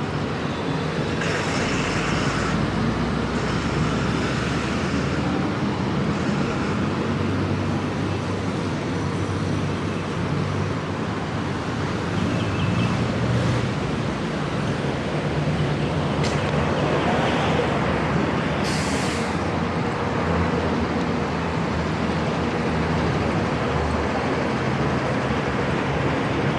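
Busy city road traffic: buses and other vehicles running past with steady engine and tyre noise, a large bus passing close at the start. A couple of short hisses stand out, one early and one about two-thirds of the way through.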